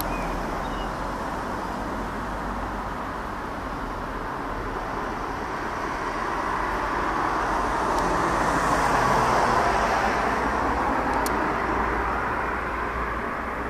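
Distant roar of a Boeing 737-800 airliner's jet engines passing high overhead, a steady rushing noise that swells slowly to its loudest about nine seconds in and then eases off.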